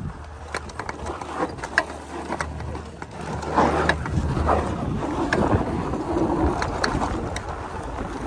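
Electric dirt bike riding up a dirt trail and picking up speed: tyres running over dirt and gravel, with many short clicks and knocks from the chassis over the bumps, over a low rumble. It gets louder about halfway through.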